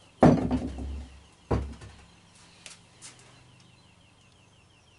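Two heavy thuds about a second apart as firebricks are set down on a workbench, the first ringing on briefly, followed by a couple of faint clicks.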